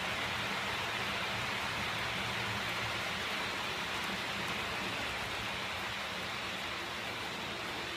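H0 scale model train coaches rolling along the track close by, giving a steady rushing rattle of wheels on rails over a faint low hum, easing off slightly.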